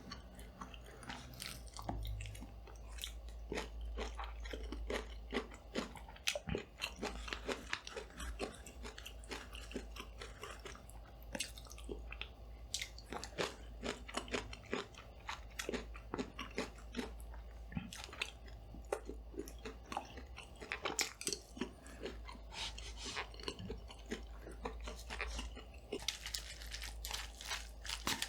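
Close-miked eating: crunchy bites and chewing, many irregular crisp crunches and mouth sounds, over a steady low hum.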